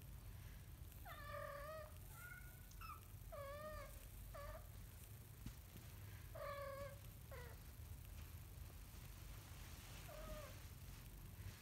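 A cat mewing: a string of short, bending mews over the first eight seconds, then one more about ten seconds in.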